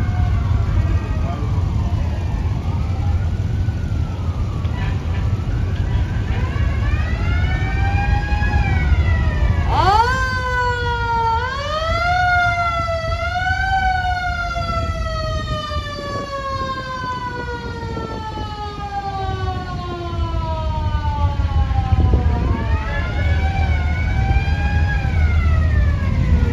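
Classic car engines rumbling as they roll past at parade pace, under a siren wailing. The siren sweeps up sharply about ten seconds in, then falls slowly over several seconds, with fainter shorter rise-and-fall wails before it and near the end.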